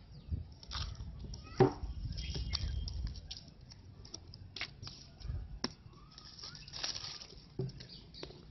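Hands peeling the seal and clear plastic film off a cardboard phone box and turning the box over: crinkling plastic, rustling and scattered small clicks and taps, with one sharper click about a second and a half in.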